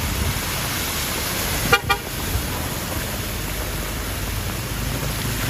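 A vehicle horn gives one short toot about two seconds in, over a steady hiss of heavy rain.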